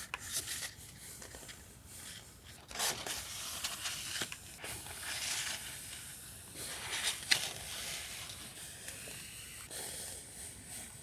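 Paper and plastic stationery packaging rustling and crinkling as it is handled, in irregular bursts with a sharper crackle about seven seconds in.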